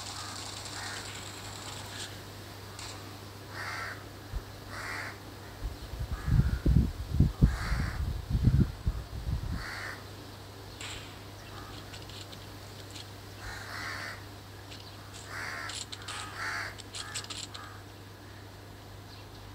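Short, harsh bird calls, like caws, repeating every second or two over a steady low hum. About six seconds in, a burst of loud, low rumbling thumps lasts some three seconds and is the loudest sound.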